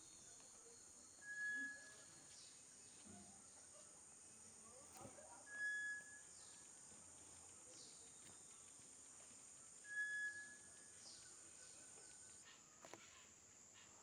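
Faint tropical forest ambience: a steady, high-pitched insect drone, its higher part stopping near the end, with a short clear bird whistle on one steady pitch three times, about four seconds apart.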